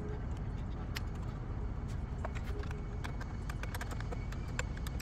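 Irregular light clicks and taps of a wrench and the cable clamps being fitted and tightened on the car battery's terminals, busier in the second half, over a steady low background rumble.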